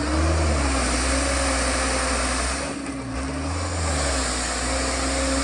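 Mitsubishi Fuso light truck's diesel engine running with a steady drone as the loaded truck sits stuck in mud. It eases off briefly about halfway through, then picks up again.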